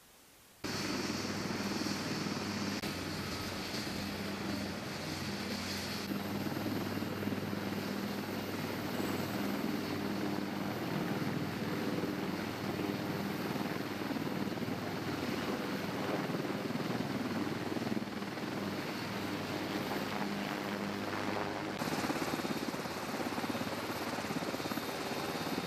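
Military helicopter's rotors and turbine engines running steadily, with a low drone under a wash of noise. The sound shifts abruptly about six seconds in and again near the end.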